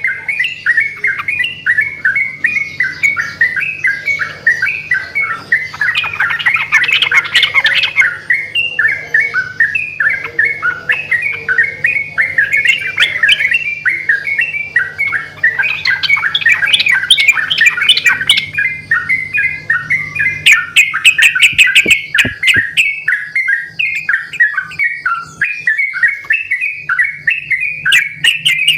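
Several sooty-headed bulbuls (trucukan) singing loudly over one another, a continuous chatter of short, quick notes that answer each other.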